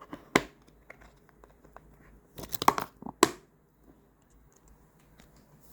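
Plastic packing material crinkling and tearing as photocards are packed, in sharp crackles: one near the start, a quick cluster in the middle, then one more, with small clicks of handling in between.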